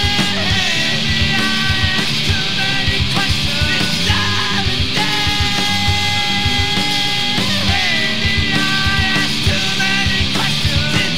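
Rock band recording, full band playing at a steady loud level: sustained electric guitar chords over a regular drum beat.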